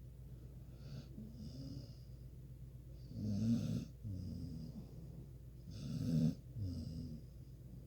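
A sleeping pet snoring. A faint breath comes early, then two loud snores about three seconds apart, each followed by a softer breath out.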